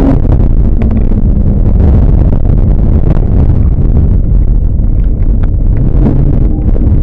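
Heavy wind buffeting on the microphone almost drowns a racing Toyota Hilux's engine. The engine note falls in the first couple of seconds, sinks under the wind, and comes back at a lower pitch near the end.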